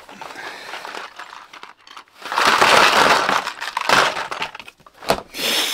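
Small cardboard LEGO minifigure blind boxes spilling out of a bag onto a tabletop: a clattering, rustling tumble of boxes for a couple of seconds in the middle, with softer rustling before it.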